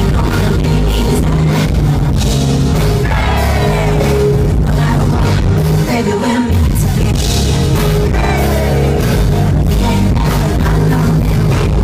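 Live band music with a woman singing lead into a microphone over a heavy bass line, loud throughout.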